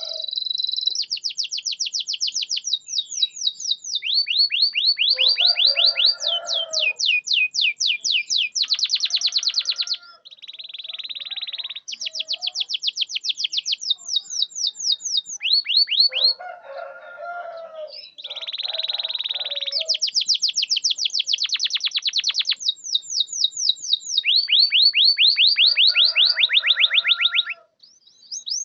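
Domestic canary singing a long song made of rapid trills: runs of fast, falling, high whistled notes, several a second, switching to a new trill every second or two, with lower rattling notes in between and a few brief pauses.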